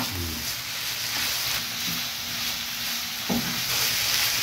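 Chicken and vegetable filling sizzling in a hot frying pan as it is stirred with a wooden spoon. The steady sizzle is broken by a few light knocks of the spoon against the pan.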